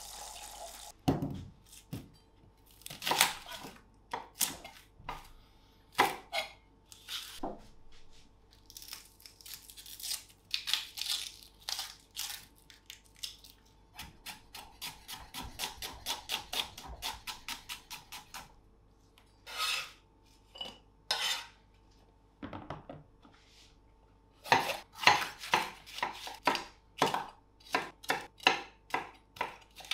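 A chef's knife cutting vegetables on a wooden end-grain cutting board, making sharp knocks as it strikes the wood. There is a quick, even run of cuts midway through as a red onion is cut, and a dense series of strokes near the end as red bell pepper is sliced. Earlier, scattered clinks of metal kitchen utensils.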